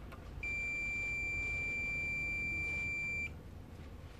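Fluke digital multimeter beeping in diode-test mode: one steady high-pitched beep lasting about three seconds, starting about half a second in, as the probes sit across the amplifier's positive and negative supply rails. The beep stops as the rail capacitors charge and the reading settles at a small voltage drop, a sign the rail is not shorted.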